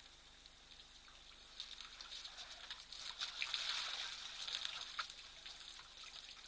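Water splashing and dripping as African elephants drink at a waterhole, trunks drawing up water and spilling it back. It is a patter of small splashes that swells to its loudest about three to four seconds in, then eases.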